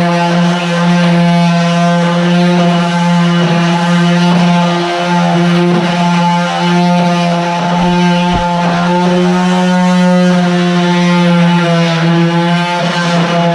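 Stanley FatMax 18-volt cordless orbital sander with a round pad running steadily with a constant motor hum while sanding woodwork with 120-grit paper, with a couple of brief knocks about eight seconds in.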